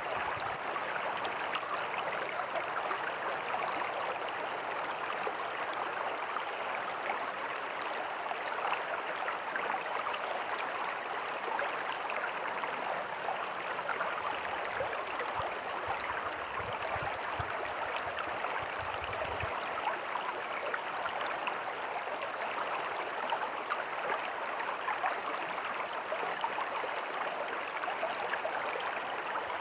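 Small creek running over rocks with a tiny waterfall: a steady rushing and splashing of water.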